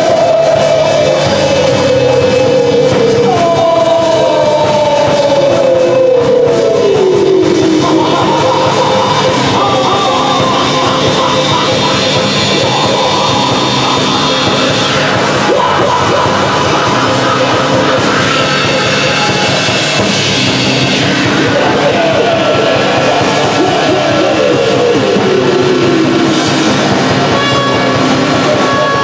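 Live experimental space-rock band playing a loud, dense wall of sound. Held low tones sit underneath, and sliding notes fall in pitch over a few seconds each, again and again.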